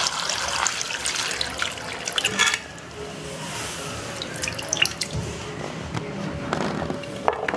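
Water pouring into a stainless-steel bowl of raw cut potato sticks, cutting off about two and a half seconds in; then a hand swishing and lifting the potato sticks in the water to wash them, with small splashes and knocks against the bowl.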